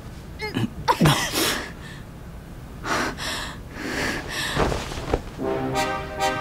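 A person's sharp, breathy, sneeze-like bursts, several in a few seconds, the loudest about a second in. Sustained music notes come in near the end.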